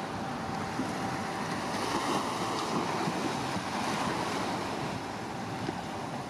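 Wind buffeting the microphone over the steady wash of waves.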